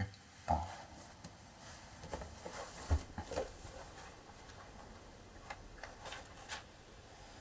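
Books being handled in bed: soft knocks and rustles as one book is put down and a paperback picked up, with a louder knock about half a second in and again about three seconds in, then lighter ticks and rustles of pages.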